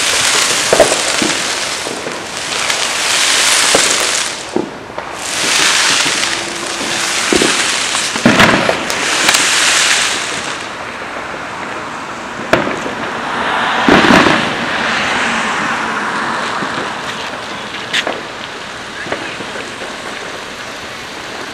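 Neighbourhood fireworks: repeated bursts of hissing crackle through the first half, with several separate bangs and pops, the loudest about eight and fourteen seconds in.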